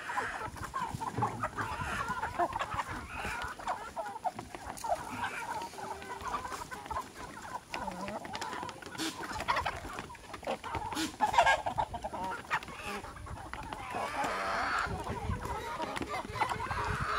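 A flock of chickens and roosters clucking busily as they crowd in to be fed.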